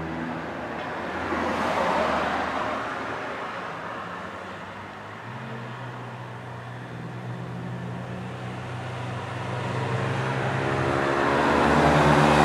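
A vehicle goes by with a tyre hiss that swells about two seconds in and fades. Then a steady engine hum sets in and grows louder toward the end as another vehicle approaches.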